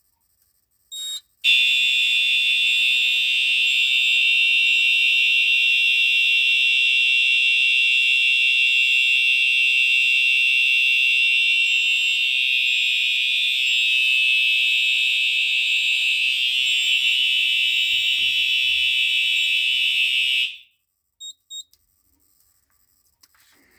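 Fire alarm horn strobes sounding a steady, high-pitched electronic alarm tone, set off by a manual evacuation on the fire alarm panel. A short blip comes about a second in, then the tone sounds continuously for about 19 seconds and cuts off suddenly, followed by two short blips.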